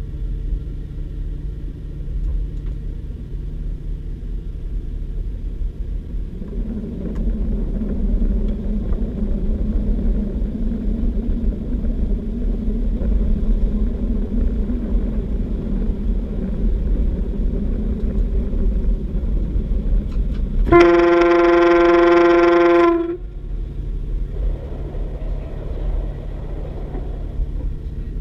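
Inside a DB Class 612 diesel multiple unit under way: a steady low rumble of the diesel engine and running gear, with the engine note growing louder about six seconds in. About three-quarters of the way through, the train's horn sounds once, a single loud tone held for about two seconds.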